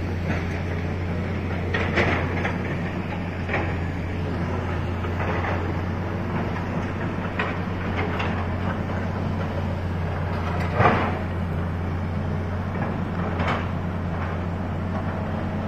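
Excavator's diesel engine running steadily as a low drone, with irregular sharp knocks and clatter of rock as it clears the roadside; one knock about eleven seconds in is louder than the rest.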